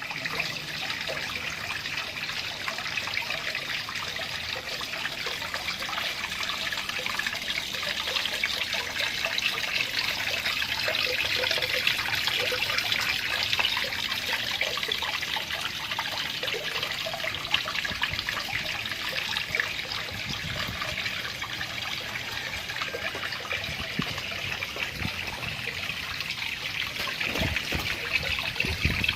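Water trickling and splashing steadily into a small cement pond, fed by an aquarium pump.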